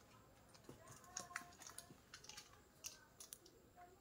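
Near silence broken by faint, scattered light clicks, the sound of a bag strap and its metal slider buckle being handled.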